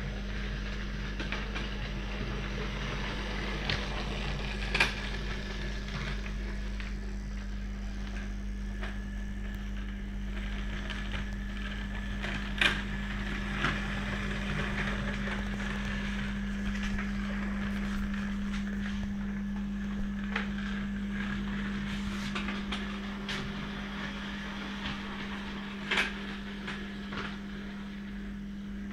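Small 16mm-scale model locomotive running on its track, giving a steady hum, with a few sharp clicks along the way.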